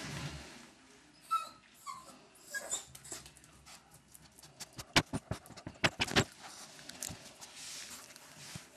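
Jack Russell Terrier puppy giving two short, high whimpers near the start, then a quick series of sharp clicks about five seconds in.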